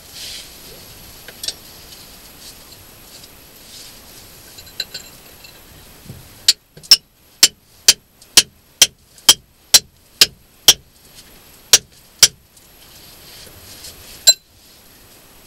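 Hammer driving a steel chisel into cave rock, chiselling it away to enlarge a passage: a few scattered strikes, then from about six seconds in a steady run of about a dozen sharp metallic blows, roughly two a second, and one more blow near the end.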